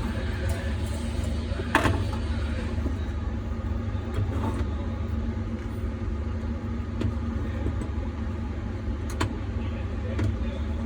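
Small sharp clicks and taps from handling the parts of an automotive lock cylinder, over a steady low hum. One click about two seconds in is the loudest.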